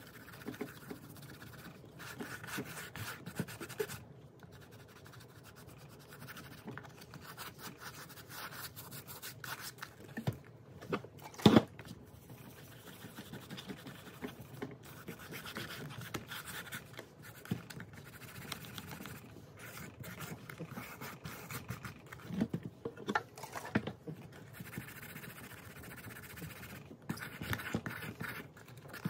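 A cotton ball and fingers rubbing and scrubbing the leather upper of a cream Tieks flat, a scratchy rubbing in uneven strokes, as acetone strips off the factory finish (deglazing). A sharp knock about halfway through is the loudest sound, with a few smaller knocks later.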